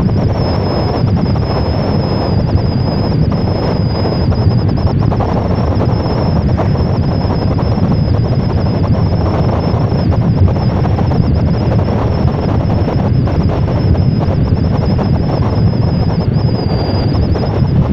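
Wind rushing over the microphone and steady road noise from a moving vehicle travelling at speed, with a thin, high, steady whine running through it.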